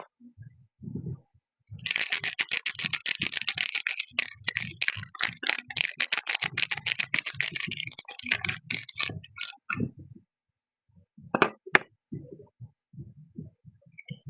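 Soap packaging being unwrapped: a dense crinkling crackle of wrapping lasting about seven seconds, then a couple of sharp clicks and soft low knocks as it is handled.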